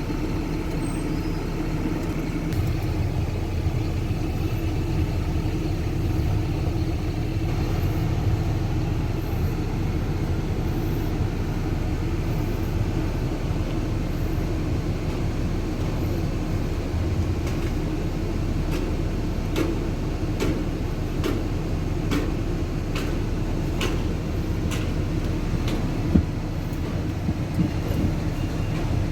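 Concrete mixer truck's diesel engine running steadily with a deep rumble. In the second half there are light ticks about once a second, and one sharp knock near the end.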